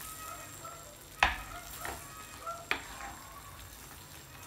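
Wooden spatula stirring and scraping chicken pieces in a thick tomato-cream sauce in a stainless steel frying pan, the sauce sizzling as a pat of butter melts into it. There are a few sharp knocks of the spatula against the pan, the loudest about a second in.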